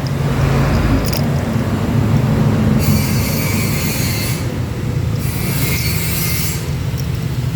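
Steady low machine hum, broken by three stretches of high hissing, each lasting about a second or so.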